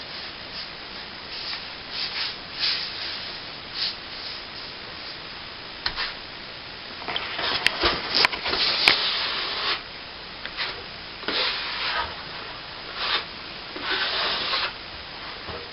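Steel plastering trowel scraping over setting cornice cement on a plasterboard ceiling patch, in repeated strokes of varying length. A few sharp clicks come around the middle.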